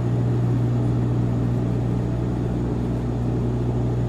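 Light propeller plane's piston engine running steadily at a constant pitch, a low even tone with overtones and no change in loudness.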